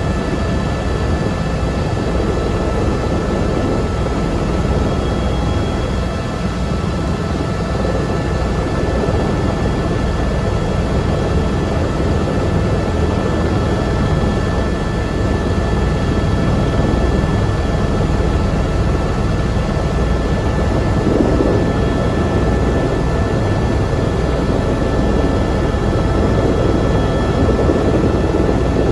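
Helicopter turbine engine and main rotor heard from inside the cockpit as it taxis across the ramp: a steady high whine over the deep beat of the rotor. It grows a little louder about two-thirds of the way through.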